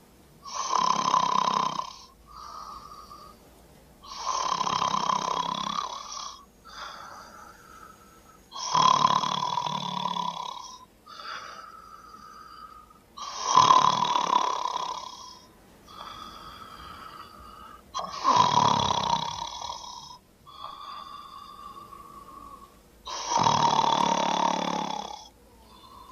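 A woman snoring heavily in her sleep: six loud snores, each about two seconds long, coming about every four and a half seconds, with a quieter breath between them.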